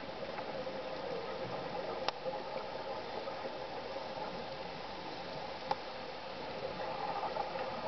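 Steady muffled underwater hiss, as picked up by a camera sealed in a dive housing, with two sharp faint clicks a little over three seconds apart.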